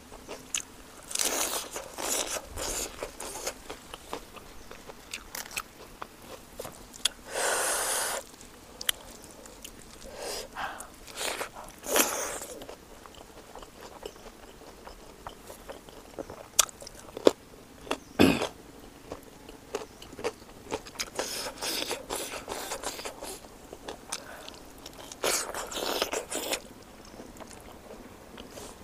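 A person eating close to the microphone: biting and chewing a lettuce-wrapped mouthful of rice and pork curry, with crunching and wet mouth clicks coming in irregular bursts.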